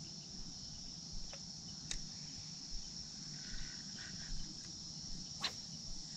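Steady, high-pitched chorus of insects singing, with a few faint clicks.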